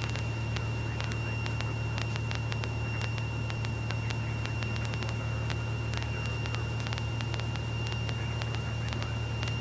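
Steady low drone of a Cessna 172E's Continental O-300 six-cylinder engine and propeller in flight, heard in the cabin audio with a faint steady high whine and fine rapid clicking over it.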